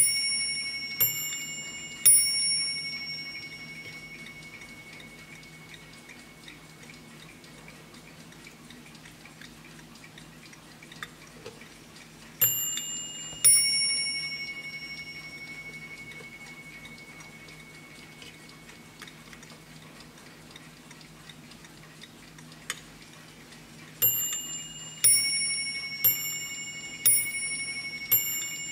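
Warmink Dutch mantel clock striking on its two bells, alternating high and low strokes in a ding-dong pattern, each stroke ringing out and slowly fading. Three strokes sound at the start. A single ding-dong comes about 12 seconds in for the half hour. Near the end a quick run of ding-dongs strikes the hour.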